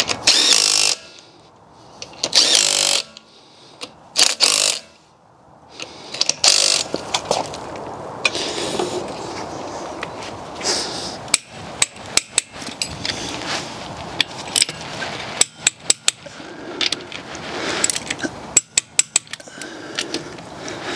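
Cordless impact wrench run in four short bursts, spinning wheel bolts into an alloy wheel. Later, a torque wrench clicks repeatedly as the wheel bolts are tightened to their set torque.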